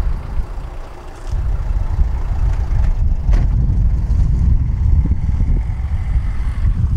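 Tram running slowly along the track, heard from on board: a steady low rumble that dips briefly and builds again about a second in, with a faint high whine over it and a single click about three seconds in.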